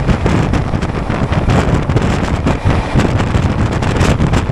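Indian Railways LHB sleeper coach running fast, heard from a window seat: a loud, steady rush of wind and rumble of the wheels on the track, with a constant rattling clatter.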